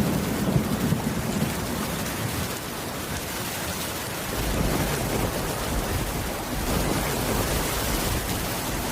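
Steady rain falling hard, with low thunder rumbling underneath, swelling near the start and again about halfway through.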